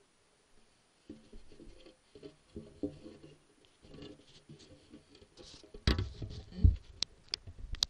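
Handling noise from an action camera being picked up and moved: muffled rubbing and bumps against the housing, then a few sharp knocks and a heavy thump in the last two seconds.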